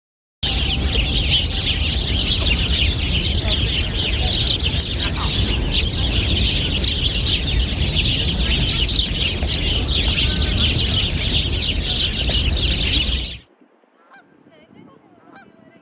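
A flock of birds calling continuously, many voices overlapping into a dense chatter, over a low rumble of wind on the microphone. It starts suddenly and cuts off abruptly a couple of seconds before the end.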